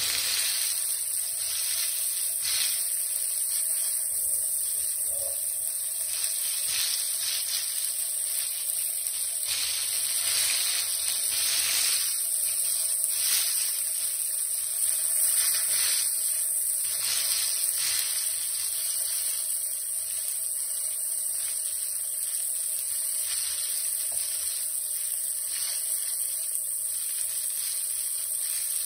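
Flour-dredged Black Sea gobies sizzling in oil in a frying pan, a steady hiss with crackling.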